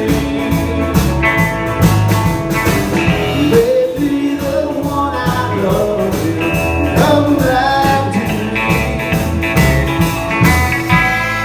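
A live band playing a song, with a singer over guitar, bass and drums.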